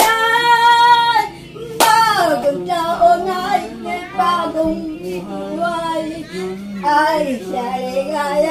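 An elderly woman singing a Christmas carol, holding long notes, with a sharp hand clap about two seconds in.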